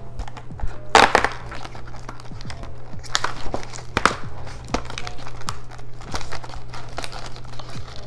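A cardboard Pocky snack box being torn open and handled, with irregular crinkling and tearing of the packaging, loudest about a second in and again around three to four seconds in.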